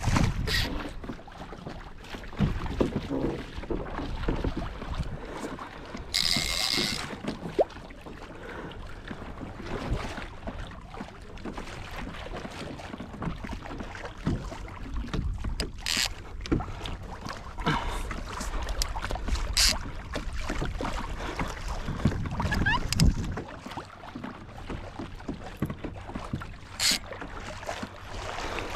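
Water splashing along a plastic kayak's hull, with wind on the microphone. A few sharp knocks and clicks sound through it, and there is a brief hiss about six seconds in.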